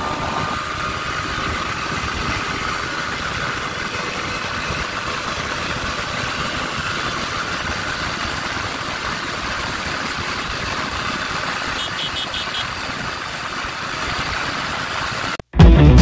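TVS Apache RTR 160 4V motorcycle gaining speed at over 100 km/h, its single-cylinder engine heard through steady wind rush on the onboard microphone. The sound holds steady throughout, then cuts off abruptly near the end.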